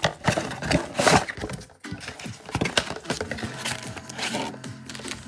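A cardboard 2024 Topps Chrome Logofractor hobby box being opened by gloved hands and its foil card packs pulled out: scraping and rustling of cardboard and crinkling wrappers, busiest in the first few seconds and then lighter.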